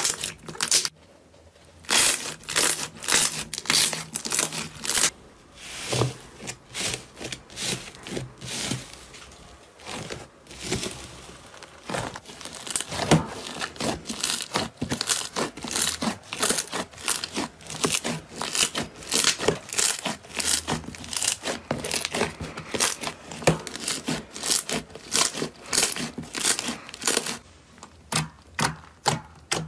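Slime being squeezed and pressed by hand, giving dense, irregular crackling and popping clicks, with a brief pause about a second in.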